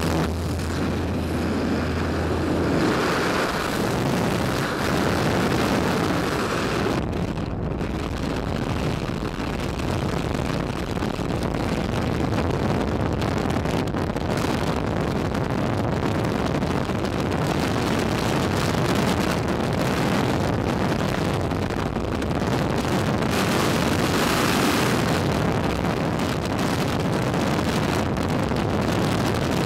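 Skydiving freefall wind rushing over a camera microphone, a steady heavy noise. For the first few seconds, before the exit, a low steady aircraft engine drone sits under it and then drops away.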